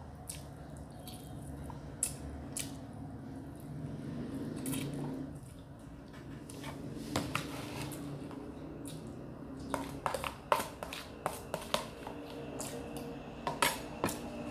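Close-up eating sounds: chewing chicken and wet mouth smacks, then a quick run of sharp clicks and taps in the last few seconds as the red plastic food container is handled.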